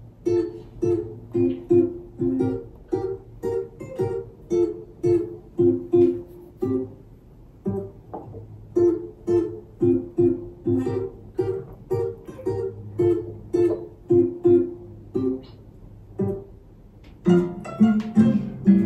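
Recorded theme song on a plucked string instrument: evenly paced plucked notes, about two a second. A short break comes about three-quarters of the way in, and the arrangement fills out with a fuller low part near the end.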